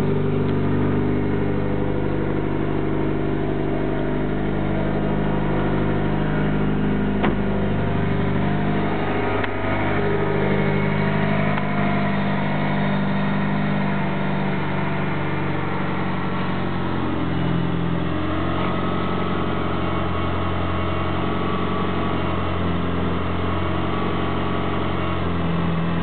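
Mitsubishi Lancer Evolution engine running steadily at idle on its first start-up, its speed shifting slightly a few times.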